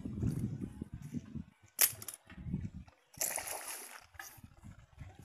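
A hooked grouper thrashing at the surface, splashing water, with a low wind rumble on the microphone. A sharp click about two seconds in is the loudest sound, and a burst of splashing follows a little after three seconds in.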